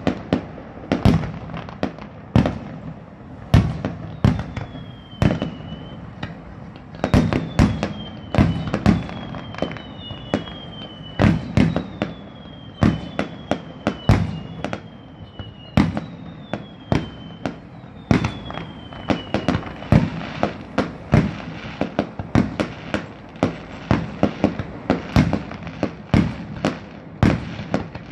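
Fireworks display: aerial shells bursting in a steady run of loud bangs, one or two a second, each trailing off in echo. From about four seconds in until about twenty, a high whistle falls in pitch over and over, roughly every second and a half.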